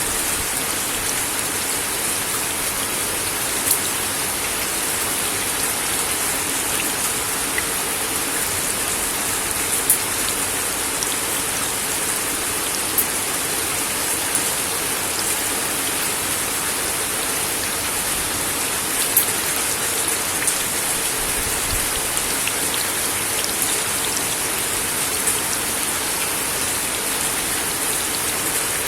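Steady rain falling on a wooden deck, a continuous hiss with scattered, louder individual drops ticking on the boards.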